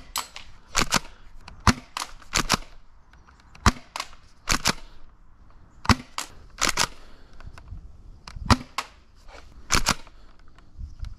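Spring-powered pump-action airsoft shotgun, firing three BBs per shot, shot repeatedly: sharp snaps of the shots and clacks of the pump being worked, in quick clusters of one to three about every one to two seconds.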